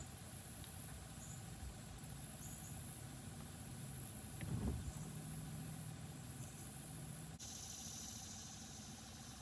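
A small motor running with a steady low hum, with a soft knock about four and a half seconds in.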